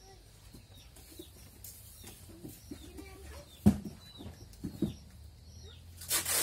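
Chickens clucking faintly and small birds giving short, repeated falling chirps. Past the middle there are two sharp knocks about a second apart, and a brief hiss near the end.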